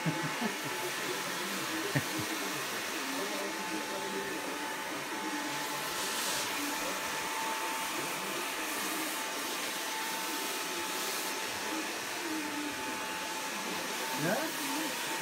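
Steady electric whir of barbershop hair-cutting tools running without a break, with a thin steady whine in it and faint voices underneath.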